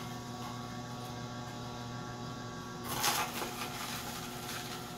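Masticating juicer's motor running with a steady hum as its auger grinds carrot. About three seconds in there is a short, louder noise.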